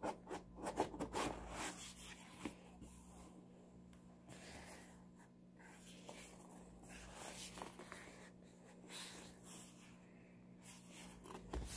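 Hardcover book handled and turned over in the hands: light taps and rubbing against the cover, busiest in the first two seconds or so, then faint scattered rustles.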